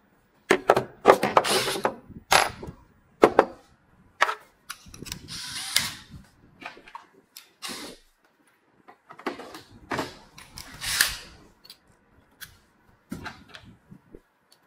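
Clicks and knocks of a replacement window handle and its parts being handled and fitted to an aluminium window, with a few short runs of a cordless drill-driver driving the screws.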